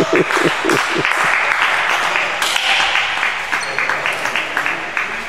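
Several people clapping, dying away toward the end.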